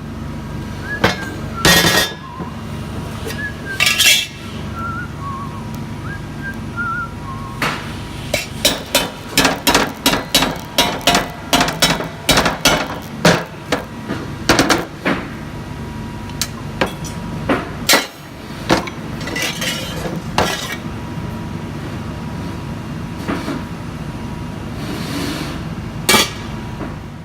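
Metal parts being tapped and clinked: a long series of sharp metallic knocks, coming fastest at about two a second in the middle, over a steady low hum.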